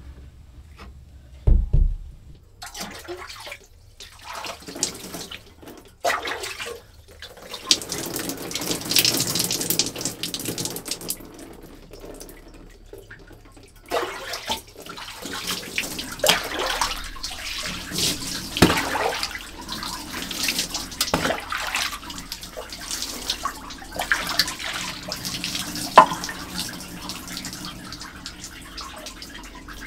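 Water being poured and splashed in irregular spells, with short pauses between them, and a low thump about a second and a half in.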